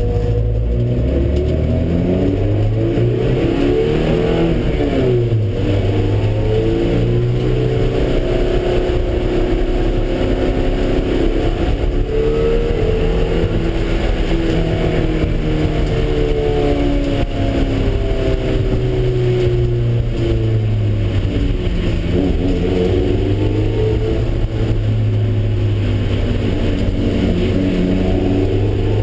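Car engine running hard on a race track, its pitch climbing and falling again and again as it accelerates and slows.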